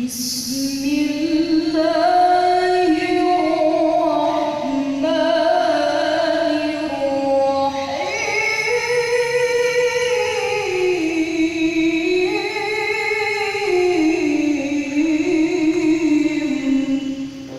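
A woman's voice reciting the Qur'an in the melodic tilawah style: one long, unbroken phrase of held notes with ornamented pitch glides that rise and fall, climbing to a higher register about halfway through.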